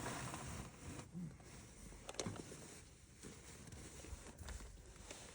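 Faint handling noises from oil-change work: light rustling with a few small clicks and knocks, the sharpest about two seconds in.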